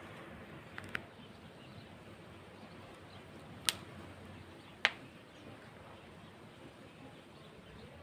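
Faint steady outdoor background noise broken by sharp clicks: two small ones about a second in and two louder ones near four and five seconds.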